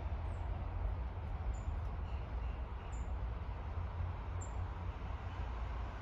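Small songbirds giving short, very high, thin chirps, about four of them spaced a second or so apart, with a couple of fainter, lower chirps between. Steady low wind rumble on the microphone underneath.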